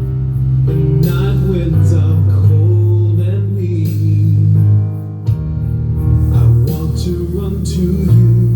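Background music: a guitar-led song with steady bass notes and a wavering melody line.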